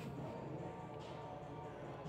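Background music at a moderate level, with a couple of faint clicks.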